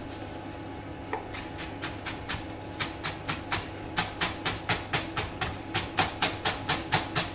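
Kitchen knife finely chopping a shallot on a plastic cutting board: quick, even taps of the blade on the board, about four a second, starting a second or so in and growing louder about halfway through.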